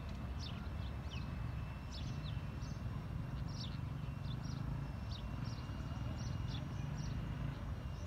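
Birds chirping: short, high, downward-sliding chirps, about two or three a second, over a steady low rumble. A faint steady high whine runs underneath.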